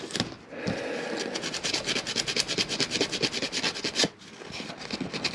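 Rapid, even rasping strokes, several a second, scraping carbon off the charred main contact of a Whirlpool dryer motor switch that is burnt from arcing. The strokes stop about four seconds in.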